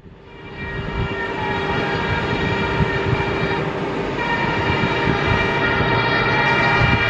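EMD diesel locomotive hauling a passenger train on approach, sounding its horn at length over the rumble of the engine and wheels; the horn's upper notes break and change briefly about four seconds in.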